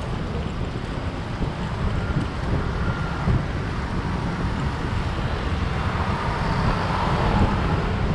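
Wind buffeting the microphone of a camera riding on a moving bicycle, a steady low rumble, with street traffic heard under it.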